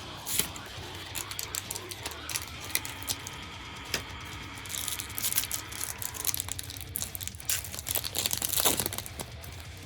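Trading card booster pack wrapper crinkling and tearing as the pack is opened, with scattered clicks and rustles of handled packaging, busiest in the second half.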